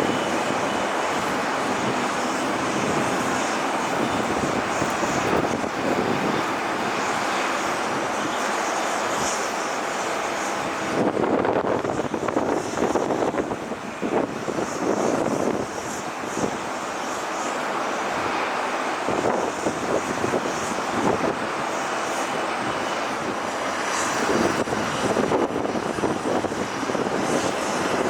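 Jet airliner engines running on the ground, a steady rushing noise with a faint high whine that swells and fades.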